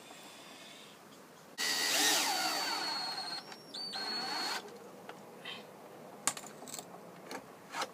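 Cordless drill driving a screw into the lid of a wooden box. It runs with a steady whine for about three seconds, starting about a second and a half in and cutting off suddenly. A few light knocks follow.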